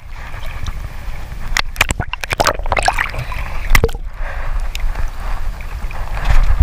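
Seawater sloshing and splashing over an action camera held at the water line, with gurgling and a burst of sharp pops in the middle as the camera dips under the surface.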